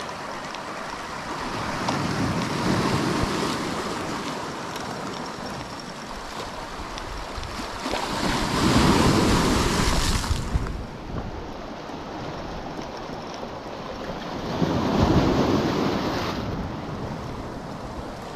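Sea waves breaking and washing up on the shore, three louder surges about six seconds apart, with wind buffeting the microphone.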